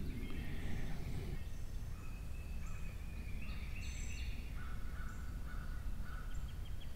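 Wild birds singing: short, clear notes held at steady pitch, at several different heights, over a low outdoor rumble.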